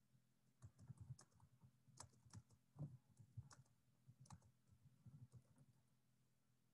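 Faint, irregular clicking of computer keyboard keys for about five seconds, over a low steady hum.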